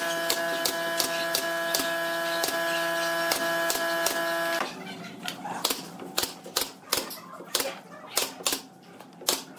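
Pneumatic brad nailer firing nails into pine boards, a fast run of sharp snaps coming about three a second in the second half. Under the first half a steady hum cuts off suddenly about four and a half seconds in.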